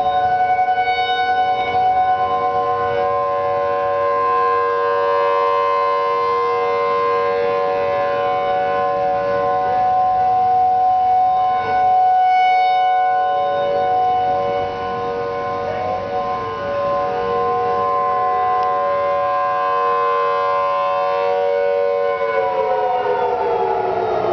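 Federal Signal Thunderbolt 1003 and 2001 tornado sirens sounding the steady alert signal: several tones held together at a constant pitch, the loudness wavering. About two seconds before the end they start winding down, the pitch falling.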